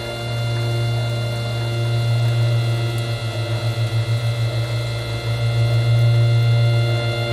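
Ambient drone music: a loud, steady low hum with a cluster of held higher tones above it, wavering in a quick pulse through the middle.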